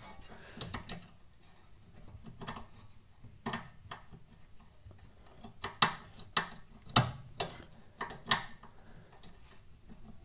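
Irregular small metallic clicks and scrapes as a brake hose retaining clip is worked loose by hand at the soft-to-hard brake line joint above a front brake disc. A dozen or so sharp clicks come at uneven intervals, a few louder ones a little past halfway.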